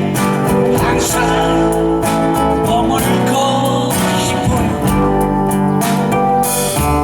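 Band music led by guitar over a bass line and a steady drum beat.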